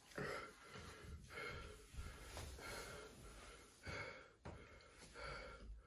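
A man breathing hard through his mouth in repeated gasps, about one a second, from the burn of a very hot chilli-sauced chicken wing.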